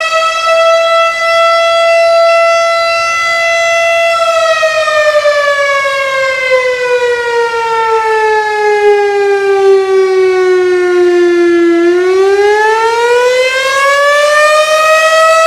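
Town emergency alarm siren wailing at very close range, a terrible, very loud sound: one steady tone that begins to slide slowly down in pitch about four seconds in, bottoms out around twelve seconds, then climbs back within a few seconds and holds. This is a test of the town's alarm siren, checking that all services are ready.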